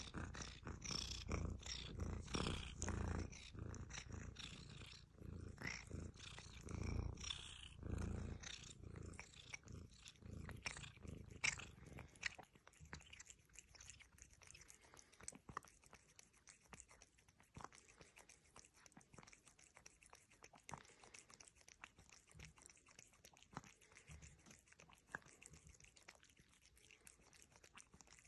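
Ginger cat purring while licking and sucking milk from a small pet nursing bottle's teat, with small wet tongue clicks. The purring is stronger for roughly the first half, then it drops away, leaving quieter, fast clicks of lapping at the teat.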